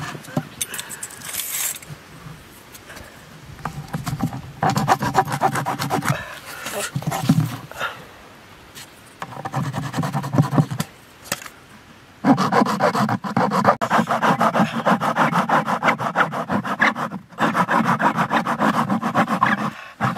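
A bare hacksaw blade, held in the hand, sawing through the rim of a plastic bucket in fast back-and-forth strokes. It comes in several bouts with short pauses, the longest from about two-thirds of the way in to the end.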